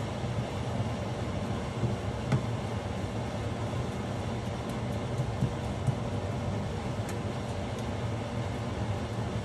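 Steady low mechanical hum, with a few light clicks of a spatula against the pan about two seconds in and again around five to six seconds in.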